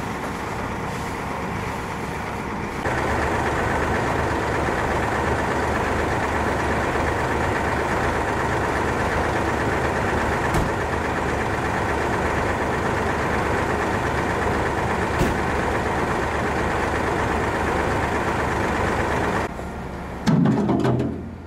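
A heavy engine running steadily, growing louder about three seconds in, with a short loud low rumble near the end.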